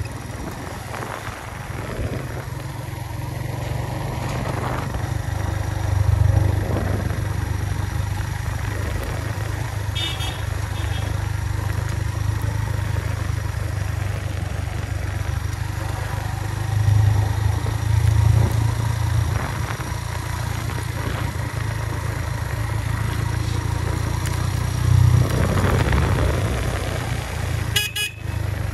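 Suzuki GS150 motorcycle's single-cylinder four-stroke engine running on the move as a steady low hum that swells louder a few times. A couple of short high beeps sound about ten seconds in, and a brief clatter comes near the end.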